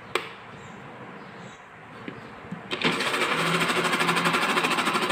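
A sharp click near the start and a few light knocks on the plastic blender jar. About three seconds in, a small countertop blender motor starts and runs loudly, beating raw eggs.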